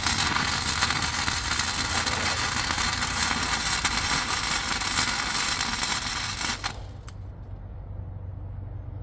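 Flux-core wire-feed welding arc crackling steadily through a weld of about six and a half seconds, then the arc stops, leaving a low steady hum.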